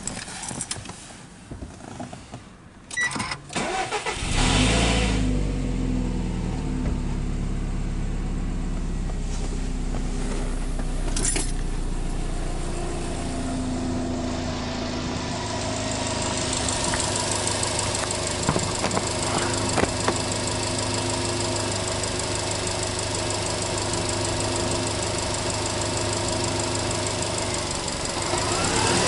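Subaru Impreza WRX STI hatchback's turbocharged boxer four being started: a few clicks, then it catches about four seconds in, flares briefly and settles into a steady idle. Near the end the pitch starts to rise as the engine is revved.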